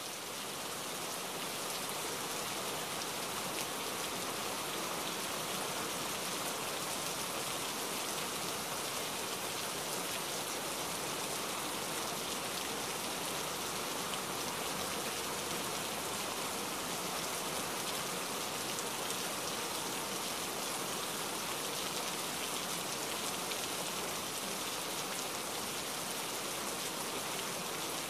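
Heavy rain falling steadily, an even hiss of countless drops.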